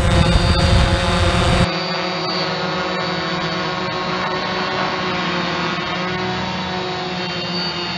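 DJI Phantom FC40 quadcopter's motors and propellers whining steadily in flight. About a second and a half in, the sound cuts from a recording on board the drone, heavy with wind rumble, to a thinner, steady whine heard from the ground as it hovers.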